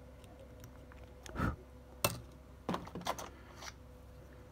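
About four small clicks and scrapes of a hobby-knife blade on a feature phone's circuit board, prying off the capacitor that is shorting the battery (VBAT) line. A faint steady hum runs underneath.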